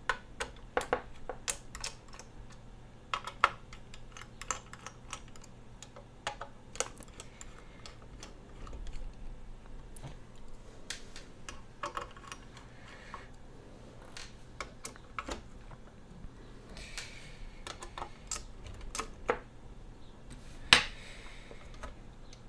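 Light irregular clicks and taps of a small screwdriver and screws as the cooler's screws are undone from the back of a graphics card, with small screws set down on a wooden desk and a few brief scraping sounds. One sharper knock near the end.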